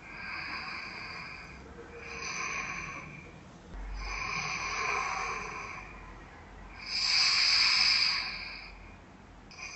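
A sleeping man breathing loudly while wearing a head-worn anti-snoring device: four long, noisy breaths, each louder than the last. It is very loud breathing rather than snoring, which shows the device keeping his airway open.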